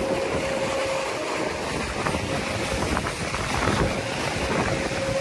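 Water rushing along the hull of a Melges 24 sportboat sailing fast downwind, mixed with wind on the microphone. A steady humming tone sounds through about the first second, then fades.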